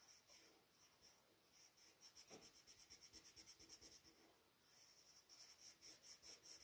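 Black coloured pencil shading back and forth on drawing paper: a faint, rapid, even scratching of about ten strokes a second, which starts about a second and a half in and breaks off briefly about four seconds in.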